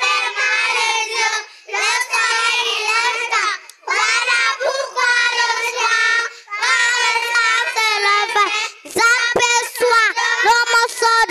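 A group of young children chanting a French poem in unison into microphones, in a sing-song recitation phrase by phrase with short pauses between lines. A few knocks sound near the end.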